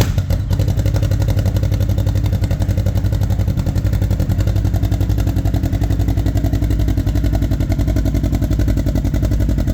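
Kawasaki Teryx KRX 1000's parallel-twin engine idling steadily through a Trinity full exhaust, header pipe back, with the silencer ring installed.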